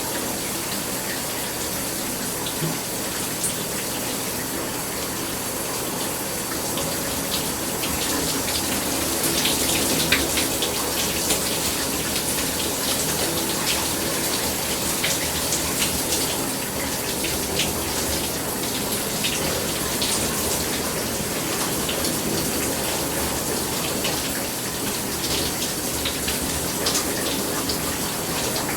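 Shower running: a steady spray of water hissing down, with many small splashes and drips against it, a little louder from about eight seconds in.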